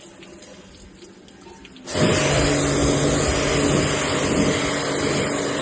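An electric pressure washer switches on about two seconds in and runs steadily: a motor hum under a loud hiss of spraying water, as used to wash an air conditioner's indoor coil.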